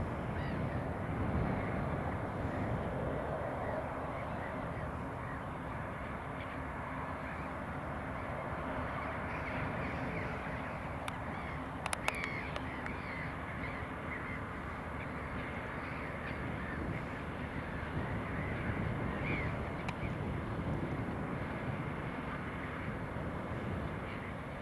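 John Deere 6150R tractor ploughing, a steady engine rumble, with many birds calling in caw-like voices over the field. A couple of sharp clicks come about halfway through.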